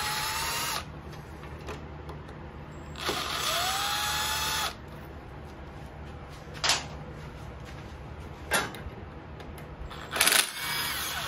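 Cordless drill/driver spinning out intake manifold bolts, twice for about a second and a half each, its whine rising in pitch as it speeds up and then holding. A few sharp metallic clicks follow, the loudest near the end.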